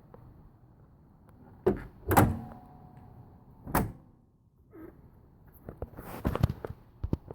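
A series of heavy thunks and clunks: a double knock about two seconds in, another near four seconds, and a cluster of knocks around six to seven seconds.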